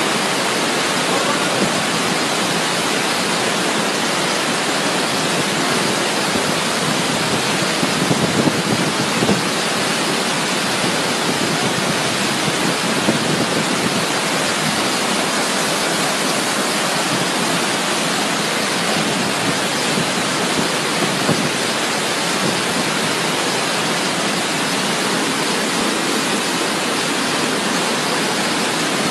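Muddy flash-flood water rushing fast down a city street: a loud, steady rush of water, with a few brief louder surges about eight and thirteen seconds in.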